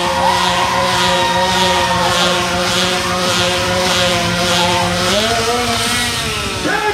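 Motorcycle engine held at high revs during a smoky burnout, with a hiss from the spinning rear tyre pulsing about twice a second over it. The revs lift slightly about five seconds in and dip briefly near the end.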